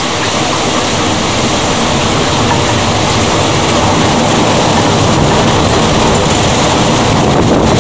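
Thunderstorm rain and wind: a steady, loud rushing noise with a low rumble underneath.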